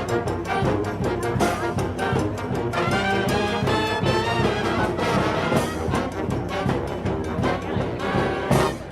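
Music played by brass instruments, with held notes and regular percussive hits.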